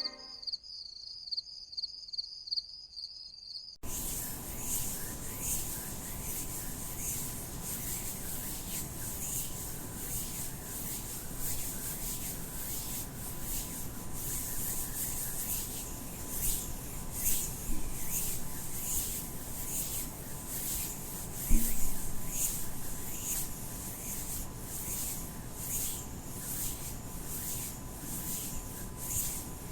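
Scratchy rubbing strokes repeating about once a second, starting about four seconds in after a few faint clicks, with a faint steady hum underneath and one low thump a little past the middle.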